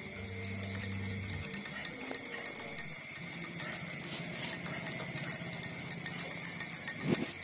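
Newborn puppies suckling at their mother's teats: irregular wet clicking and smacking, busier and louder from about three seconds in, over a steady high-pitched whine.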